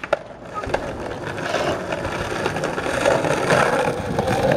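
Skateboard wheels rolling on concrete, a steady rumble that grows louder as the board comes closer, with a couple of sharp clicks near the start.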